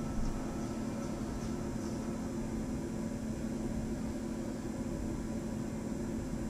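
Steady low hum with a faint hiss of room noise, with one soft click just after the start.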